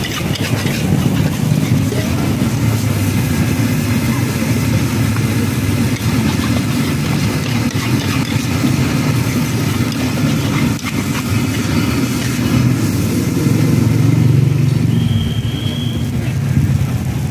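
Metal spatula scraping and clanking against a large wok as fried instant noodles are stir-fried, over a steady low rumble.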